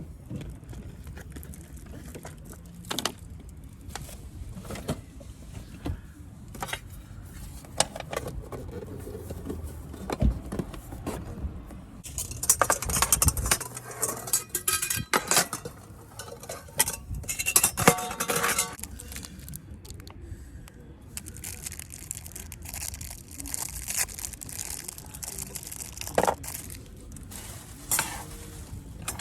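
Camp cookware and utensils being handled: scattered clinks and knocks of metal and glass, with a busier stretch of clattering and scraping about halfway through.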